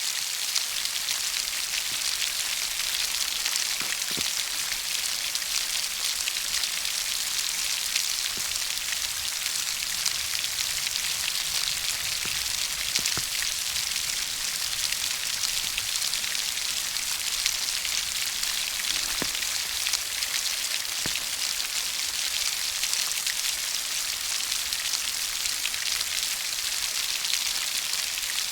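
Steady rain falling, an even dense hiss with a few single louder drops standing out now and then.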